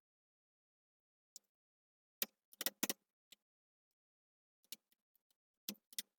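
A few light, scattered clicks and taps against near silence: a cluster about two to three seconds in and a few more near the end. They are small parts being handled as the repaired USB board is fitted back into the PC.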